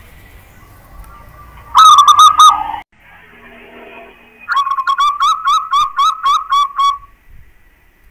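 Zebra dove (perkutut) singing: a short phrase of quick cooing notes about two seconds in, then a longer run of about ten rapid staccato coos.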